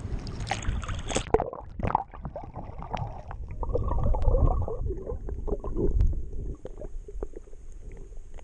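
Water at a GoPro's microphone while snorkeling: a second of splashy hiss, then the sound turns muffled as the camera goes underwater, with gurgling, bubbling and small clicks.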